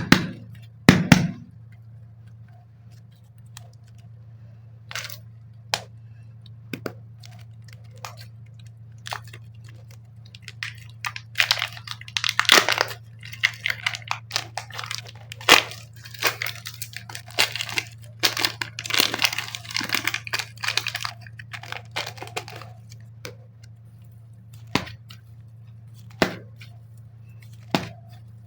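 Clay packaging being opened and handled close to the microphone. A couple of sharp clicks near the start, scattered ticks, then a long stretch of crackling and tearing in the middle, over a steady low hum.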